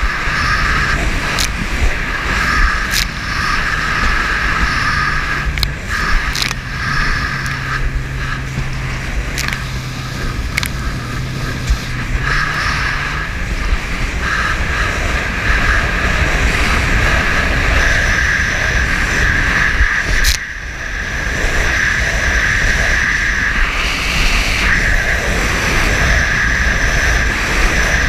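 Small watercraft under way on a rough sea: its engine runs steadily at speed under a steady rush of wind and water, with sharp knocks now and then.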